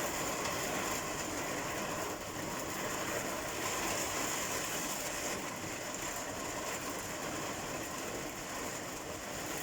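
Heavy rain pouring down, heard from inside a shed as a steady hiss.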